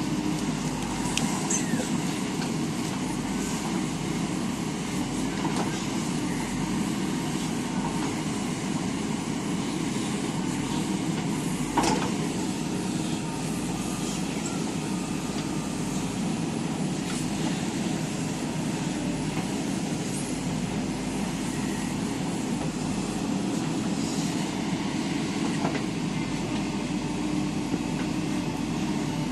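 Diesel engine of a JCB 3DX backhoe loader running steadily under load while it loads soil, with one sharp knock about twelve seconds in.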